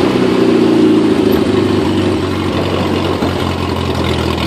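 1970 Opel GT's four-cylinder engine idling, its revs easing down a little over the first second and a half and then holding steady.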